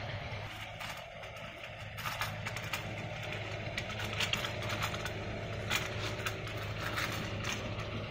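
Small clicks and scrapes of metal lamp parts being handled, a knurled nut on a threaded stem being fingered, starting about two seconds in, over a steady low hum.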